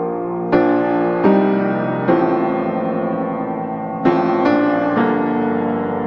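Background piano music: a slow piece with notes and chords struck about once a second, each left to ring and fade.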